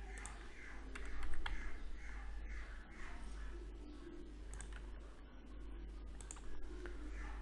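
Faint computer keyboard keystrokes and mouse clicks from shortcuts being pressed while modelling, a few separate clicks over a low steady hum.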